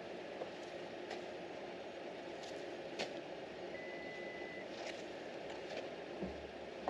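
A vehicle running steadily, with a single short high beep about four seconds in and a few light knocks.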